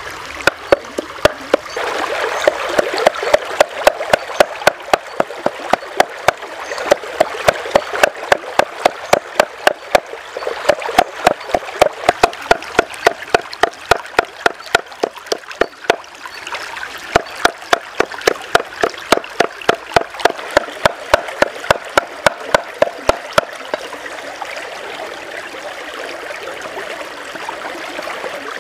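Cleaver chopping and mincing meat on a wooden cutting board: rapid, even chops about four a second that stop a few seconds before the end. A shallow stream runs and trickles underneath throughout.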